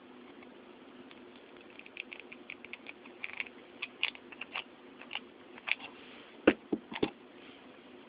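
Small metal clicks and taps from parts of a titanium-framed folding knife being handled and fitted together during reassembly, scattered irregularly, with a few louder knocks about six and a half to seven seconds in. A faint steady hum sits underneath.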